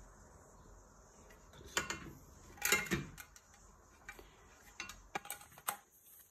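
Metal frame bars and plastic joints of a car roof luggage basket being handled and fitted together: two louder clattering knocks about two and three seconds in, then several light clicks.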